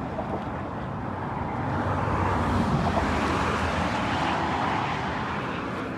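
Road traffic: a steady rumble of passing cars and tyres that grows louder about two seconds in and eases off again.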